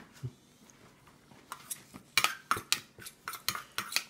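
A spoon scraping and clinking against a stainless steel bowl as food is scooped up, a run of sharp clicks about three a second starting about a second and a half in.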